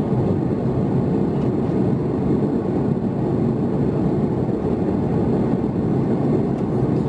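Steady cabin noise of an Airbus A330-300 in flight: the even, dull rush of the jet engines and airflow as heard inside the cabin by the window.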